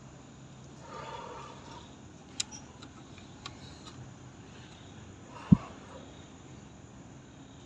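Quiet background hiss with two faint sharp clicks, then one short low thump about five and a half seconds in.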